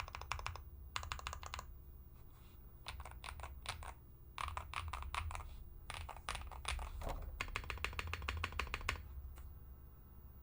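Typing on a QK65 mechanical keyboard with stock Gateron Quinn tactile switches in a polycarbonate plate with no foam, and PBT keycaps: quick runs of keystrokes in bursts with short pauses between them, tapering off after about nine seconds.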